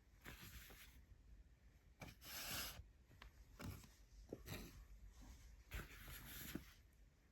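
Faint handling sounds in a small room: a few light clicks and knocks, with a brief rustle about two seconds in.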